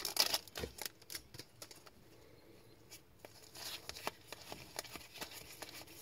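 2023-24 Upper Deck MVP hockey cards being sorted through in gloved hands, slid and flicked against each other: a run of soft clicks and short scrapes, with a crinkle of the opened pack wrapper at the start.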